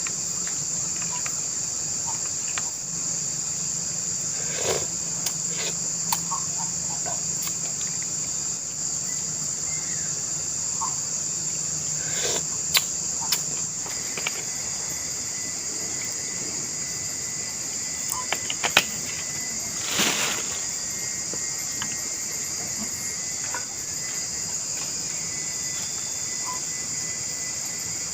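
A dense insect chorus in tropical forest: a steady, high-pitched, unbroken drone. It is broken by a few scattered clicks and knocks, the loudest about two-thirds of the way in, and a faint low hum that stops about halfway.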